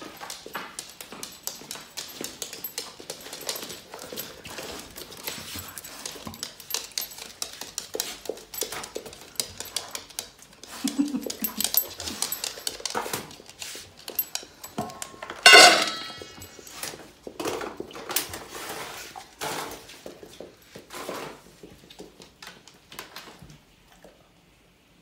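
A Labrador moving about on a wooden floor with a wicker basket in its mouth: many light ticks and rustles of claws and wicker. About two-thirds of the way through, the dog gives one short, loud call.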